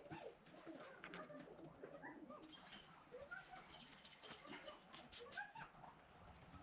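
Near silence with faint bird calls: short rising and falling chirps scattered throughout, and a few faint clicks.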